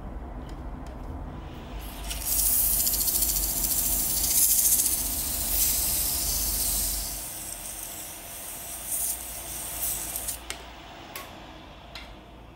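An abrasive pad sanding a brass insert set in a wooden plate spinning on a woodturning lathe: a loud steady hiss from about two seconds in that eases off after about five seconds, followed by a few light knocks.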